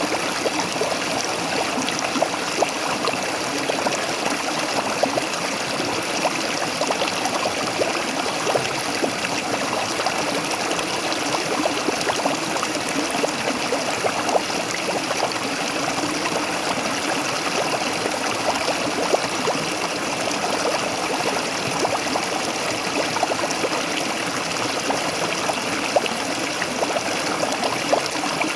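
Waterfall water splashing and gurgling steadily, an even rush with many small splashes throughout.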